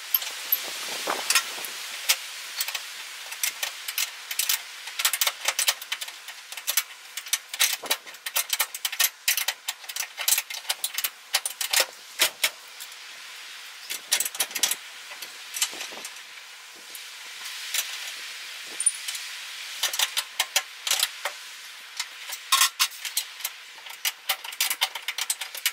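Irregular metallic clinks and clicks of hand tools and hardware against a steel truck frame, sometimes in quick runs of several clicks.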